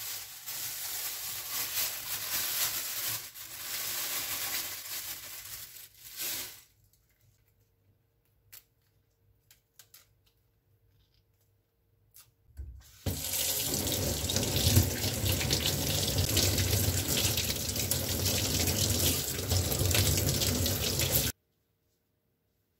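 Kitchen tap running into a stainless-steel sink to rinse green leaf lettuce. The water runs for about six seconds and stops, a few light handling clicks follow, then it runs again, louder, for about eight seconds and cuts off suddenly.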